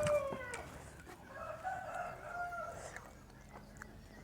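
Rooster crowing: the end of one crow falls in pitch in the first half second, then fainter, more distant crowing follows about a second and a half in.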